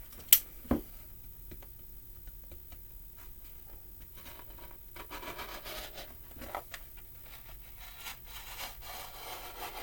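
Gasket material being cut to trim a piece off the sheet: two sharp clicks near the start, then faint rubbing and scraping that grows a little louder in the second half.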